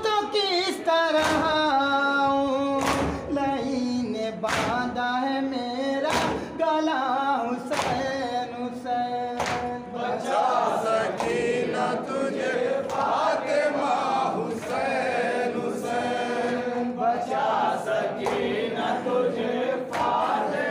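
Men chanting a Muharram nauha (mourning lament) in unison, with regular hand-on-chest strikes of matam about every second and a half. In the first half one clear voice leads; from about ten seconds in, the chanting thickens into the whole group.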